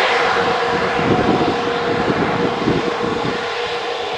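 Jet airliner's engines running with a steady whine over a constant rush as the aircraft manoeuvres on the runway turning pad before departure.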